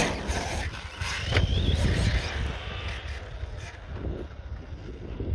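Surpass Hobby brushless motor of an Arrma Outcast RC car whining as the car accelerates away, with a short rising whine about a second and a half in. Wind rumbles on the microphone throughout and is the loudest sound.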